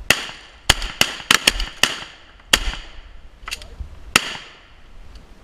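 A volley of shotgun shots from several waterfowl hunters firing together at passing ducks: about ten sharp blasts, uneven and overlapping, over roughly four seconds, each trailing off in a short echo.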